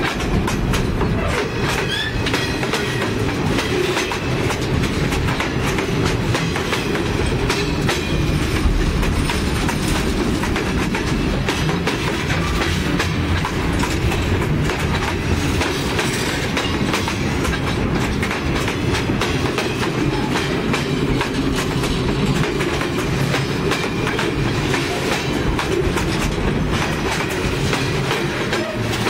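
Freight cars rolling directly over the rails, heard from between them at track level: a steady heavy rumble with many sharp clacks from the wheels.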